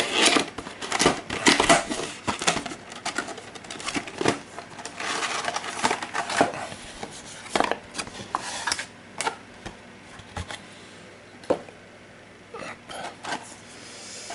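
Cardboard game box and cards being handled on a table: an irregular run of taps, clicks and rustles, with a longer sliding rustle about five seconds in and sparser clicks near the end.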